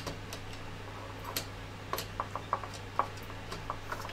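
Light, irregular clicks and taps of a 3D-printer power supply's metal casing being handled against the frame and its mounting screws, about a dozen in all, over a steady low hum.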